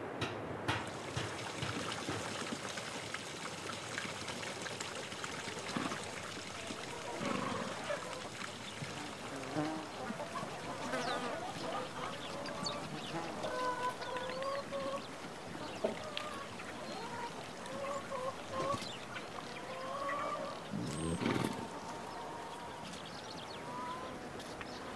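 Chickens calling with short, repeated notes around horses at a feeding trough, over a steady outdoor hiss. A short, louder rush of sound stands out about three-quarters of the way through.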